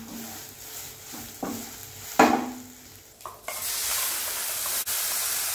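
Spatula stirring grated hill gooseberry frying in oil in a non-stick kadai, with two sharp knocks of the spatula against the pan, the second the loudest and ringing briefly. Past the middle a steady, louder sizzling hiss sets in.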